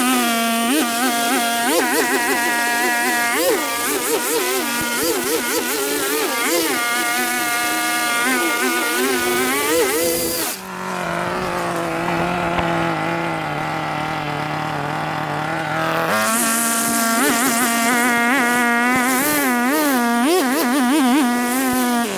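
Shindaiwa two-stroke string trimmer running at high revs, its pitch wavering as the line cuts through long grass with a high hiss. About ten seconds in, the engine drops to a lower, steadier note and the cutting hiss stops. Some five seconds later it picks up again and goes back to cutting.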